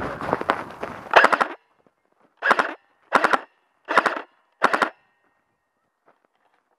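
Footsteps crunching on packed snow: hurried running steps for about the first second and a half, then four evenly spaced walking steps, about one every three-quarters of a second, that then stop.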